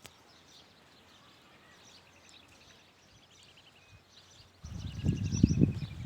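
Quiet outdoor background with small birds giving fast, high trills. About four and a half seconds in, a much louder, uneven, low rustling noise starts.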